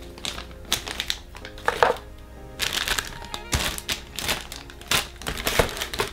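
Clear plastic parts bags crinkling in irregular bursts as they are handled and set down, over background music.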